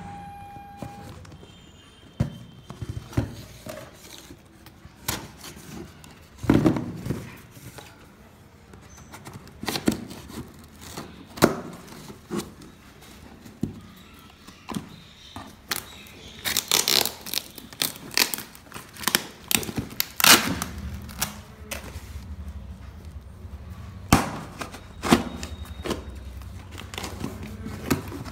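A cardboard shipping box being opened by hand: a knife slitting the packing tape, the tape peeling and tearing off, and the box knocked and shifted, giving scattered knocks, scrapes and crackles, with a longer run of tearing about halfway through.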